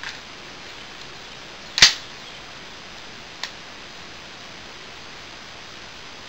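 AR-15 rifle in .223 firing a single shot about two seconds in, with a much fainter sharp crack about a second and a half later.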